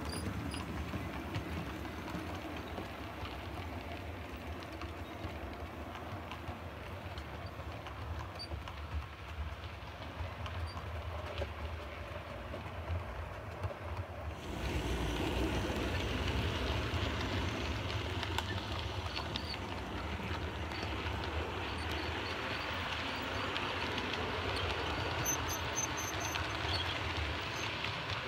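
Model railway train running on the track: the steady whirr and rumble of the locomotive motors and coach wheels, with light clicks. It gets louder about halfway through.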